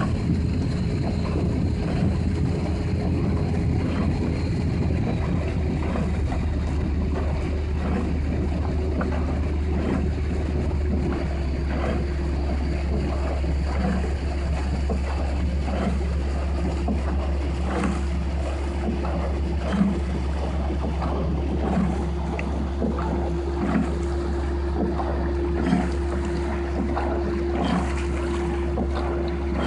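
Motorboat outboard engine running steadily at cruising speed, with water and wind noise; from about the middle come light knocks about every two seconds.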